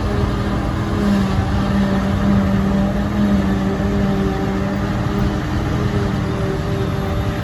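Claas Jaguar self-propelled forage harvester and Massey Ferguson tractor running side by side while the harvester picks up and chops grass silage: a steady engine drone with a humming tone.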